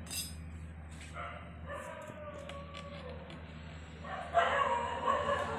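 A dog in the background: a drawn-out, slowly falling whine, then a louder burst of yelping about four seconds in, over a steady low hum.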